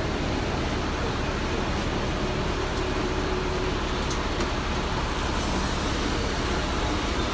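Concrete mixer truck's diesel engine running steadily, heard close up as a constant low rumble.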